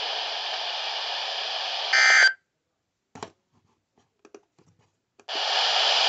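Midland weather alert radio hissing with NOAA Weather Radio static. About two seconds in comes a short warbling data burst of a SAME end-of-message code, after which the radio's audio cuts to silence with a few faint clicks, and the static hiss returns near the end.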